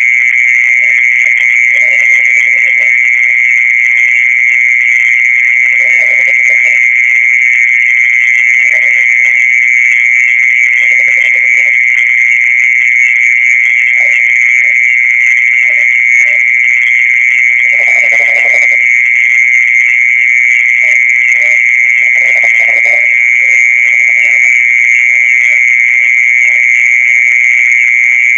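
Loud, unbroken high-pitched trill holding one steady pitch: the night-time ground song that is popularly credited to earthworms and is actually made by mole crickets. Faint, short, low calls come and go beneath it, the strongest about two-thirds of the way through.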